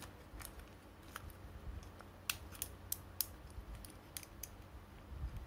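Faint, irregular clicks and taps of hard plastic toy parts being handled and worked apart by hand, over a low steady hum.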